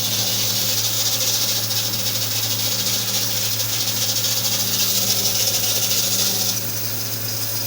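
Renault Duster 1.6 engine running, with a loud steady hiss over its hum that eases about six and a half seconds in. The owner takes the noise for the drive belt and is treating it with a belt dressing.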